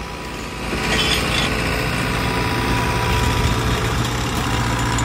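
Engine of a rail maintenance machine running steadily at idle, its hum growing louder about a second in.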